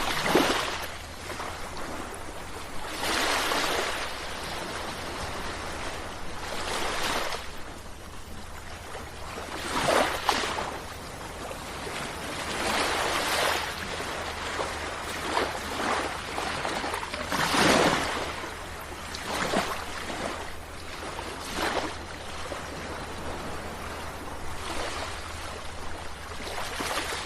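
Sea waves breaking and washing in, with a louder surge every two to four seconds over a continuous wash and a steady low rumble underneath.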